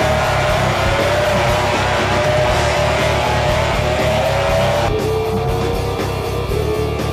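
Rock music with electric guitar over a steady drum beat, its lead line sliding slowly upward and dropping to a lower note about five seconds in.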